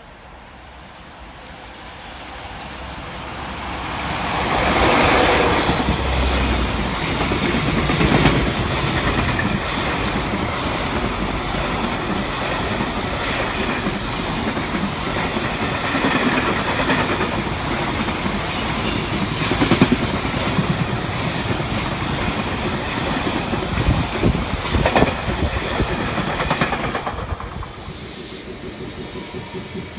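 A JR freight train passing close by: it approaches and grows loud over the first few seconds, then a long run of wagons clatters over the rail joints before the sound falls away near the end.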